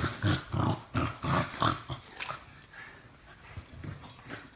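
Dogs play-wrestling, with a run of short growls and snarls over the first two seconds, then fainter scuffling and breathing.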